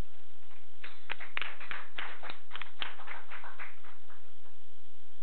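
Applause from a small audience, made of many separate hand claps, starting about a second in and dying away by about four seconds.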